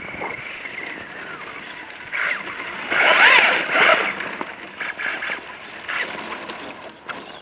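A 1/10 scale RC truck's brushless electric motor and drivetrain whining, rising and falling in pitch with the throttle, over the hiss of its tyres on packed snow. It is loudest about three to four seconds in, as the truck passes close by.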